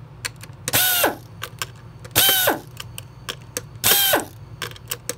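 Cordless electric screwdriver with a Torx bit running in three short bursts about a second and a half apart, each dropping in pitch as it stops, as it backs out the small T10 screws of a Dyson V8 cyclone. Light clicks fall between the bursts, over a steady low hum.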